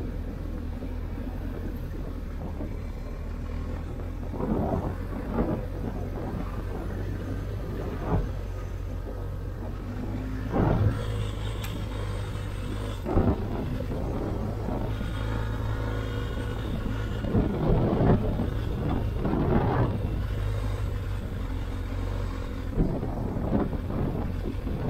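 Motorcycle on the move, heard from the bike: the BMW R 1250 GS Adventure's boxer twin droning steadily under wind and road noise, with a dozen or so short louder swells.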